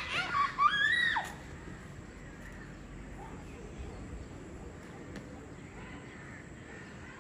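A high-pitched voice squealing, its pitch sliding sharply up and down in the first second. After that only a faint, steady background hum.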